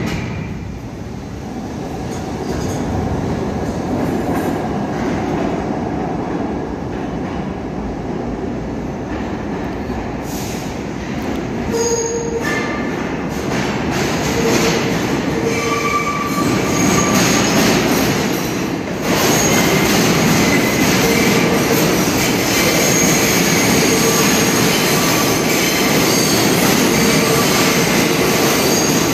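New York City subway trains on steel rails: a continuous heavy rumble, with high-pitched wheel squeals coming in about halfway through. It grows louder in the last third as a train runs past.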